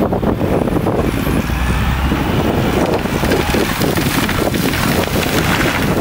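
Wind buffeting the microphone over the running diesel engine of a wheel loader, with a rush of branches through the middle as the white spruce it is pushing goes over.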